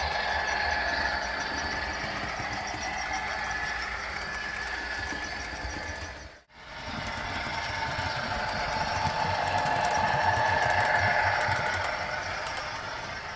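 Model Amtrak diesel locomotive's sound system playing a running diesel engine, steady with held tones that swell and fade. It cuts out briefly about halfway, then grows louder as the locomotive passes close.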